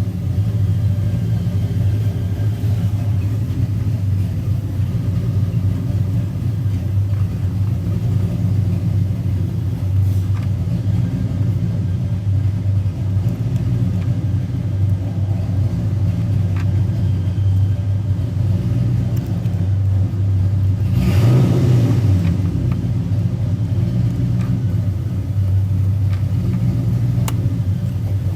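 A car engine running with a steady low rumble, swelling briefly louder once about two-thirds of the way through.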